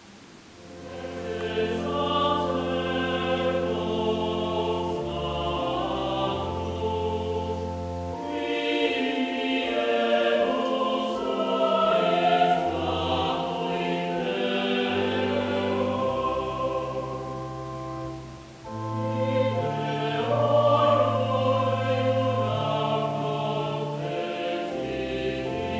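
Mixed choir of men's and women's voices singing a sacred choral piece in sustained chords over a low bass line. It comes in about a second in and breaks briefly between phrases about two-thirds of the way through.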